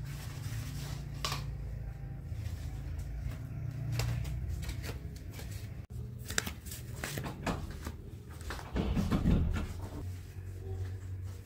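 Hotel room sounds of someone moving about: a steady low hum under scattered light taps and soft rustles, with a louder rustling stretch about nine seconds in.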